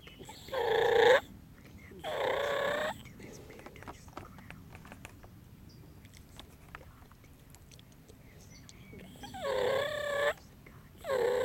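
Wild turkey gobblers gobbling four times: two gobbles close together near the start, and two more near the end.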